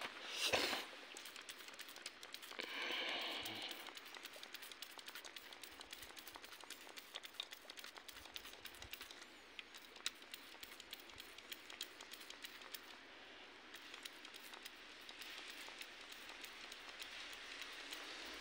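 Toy pump-action water gun squirting water onto snow: faint spray hisses, one short one about three seconds in and a longer one near the end, over a scatter of small ticks and pattering.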